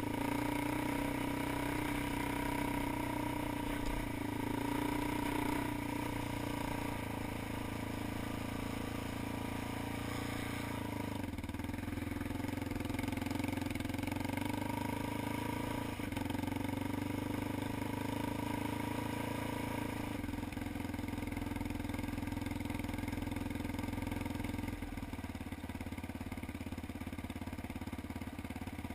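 ATV engine running steadily while riding, its pitch rising and falling slightly; it eases off a little near the end.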